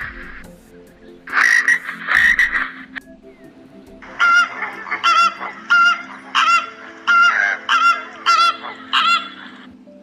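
Animal calls: two short noisy bursts, then a series of about eight evenly spaced pitched calls, about one and a half a second, with a faint steady low drone underneath.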